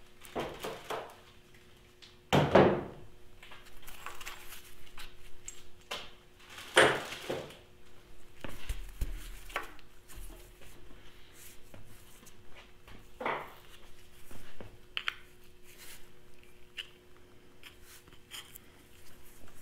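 Scattered clunks and knocks of hands working the water pump and fan pulley on a Farmall Super M engine block, with two louder knocks about four seconds apart early on the way, over a faint steady hum.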